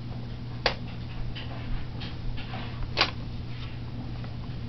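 Paper bill stub and envelope being handled and nudged: soft paper rustles and a few sharp light ticks, over a steady low hum.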